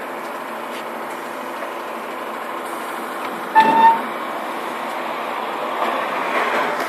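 Steady running noise of a Škoda 14Tr17/6M trolleybus standing at a stop. About three and a half seconds in, a single short, loud beep sounds, and the noise swells slightly near the end.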